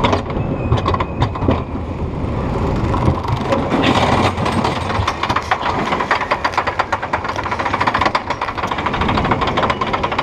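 Roller coaster car rolling on steel track, then climbing the chain lift hill with a rapid, even clacking of the lift chain and anti-rollback ratchet from about four seconds in.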